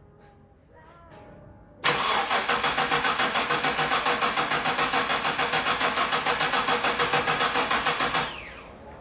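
Starter motor cranking a Hyundai Galloper's LPG engine for about six seconds with an even, rhythmic churn. The engine never catches and the cranking stops abruptly. This is a no-start on a vaporizer-fed LPG engine, cranked on a weak battery.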